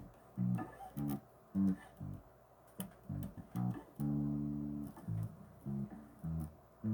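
Bass guitar played alone: a line of short plucked low notes with gaps between them, and one longer held note about four seconds in.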